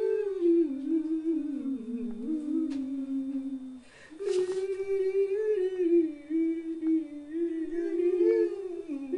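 A single voice humming a slow, wandering tune, with one short break for breath about four seconds in.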